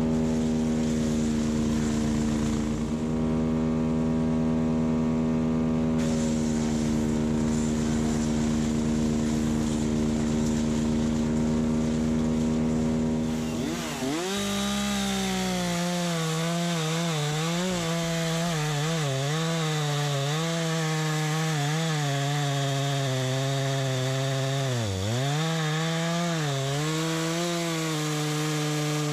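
An engine held at steady high revs for about fourteen seconds, then a STIHL MS 251 C two-stroke chainsaw cutting firewood rounds, its pitch dipping again and again as the chain bites into the wood.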